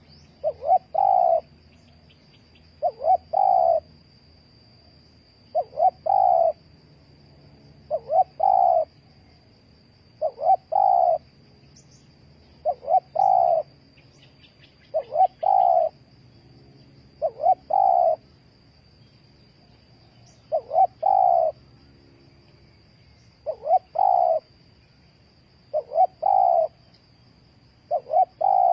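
A spotted dove cooing over and over, about one phrase every two to three seconds, each phrase two short coos followed by a longer one. A faint steady high-pitched tone runs underneath.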